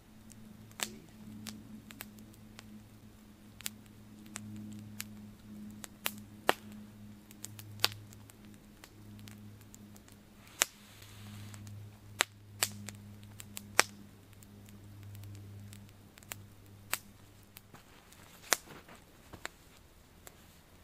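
Small wood campfire crackling, with sharp, irregular pops and snaps every second or so over a faint, steady low hum.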